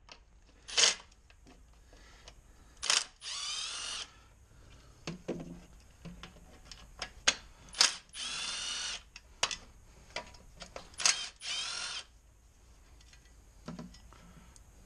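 Milwaukee 3/8-inch cordless impact wrench running in three short bursts of under a second each, with sharp clicks between them, as it works bolts off the reservoir mounting.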